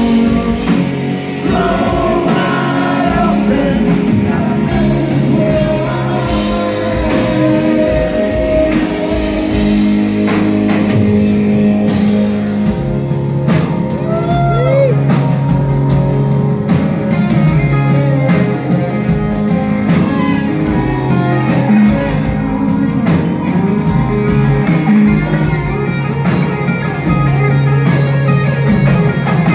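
Live rock band playing: electric guitars, bass and drum kit with a voice singing, heard from among the audience in a club hall. The high end drops out briefly before the band comes back in with a crash about twelve seconds in.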